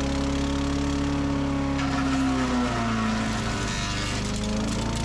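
Small gas engine of a wood chipper-shredder running steadily. A rougher chipping noise comes in about two seconds in, and the engine's pitch sags as it takes the load of a branch being fed, then climbs back up near the end.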